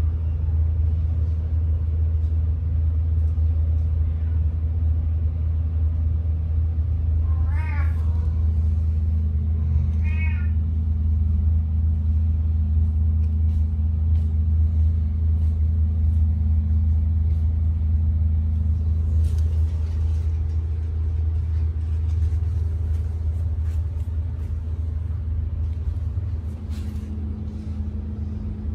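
A cat meows twice, about eight and ten seconds in, over a loud, steady low hum.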